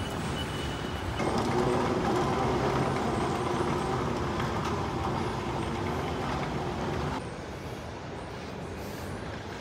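A vehicle running steadily. It grows louder about a second in, with a droning tone, and drops back down about seven seconds in.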